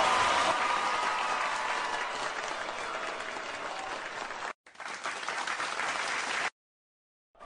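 Crowd applause, a dense crackle of clapping that drops out briefly about four and a half seconds in and then cuts off about a second before the end.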